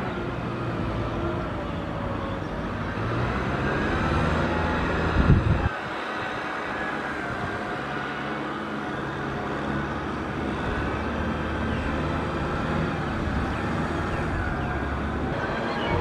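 Kubota M6040SU tractor's diesel engine running steadily under load while pulling a disc plough, its pitch drifting slightly. About five seconds in there is a brief loud burst that cuts off abruptly.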